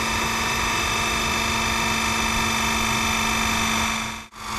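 Electric hydraulic car jack running steadily, its motor and pump driving the ram up against a bent tie rod to straighten it. The sound cuts out for a moment near the end, then resumes.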